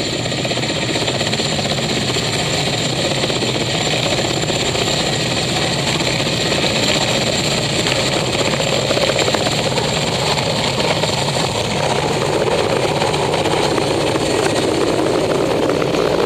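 Mil Mi-8 twin-turbine helicopter taking off and flying low past, a rapid beat from the main rotor over the steady high whine of the turbines. It grows louder as the helicopter comes closer near the end.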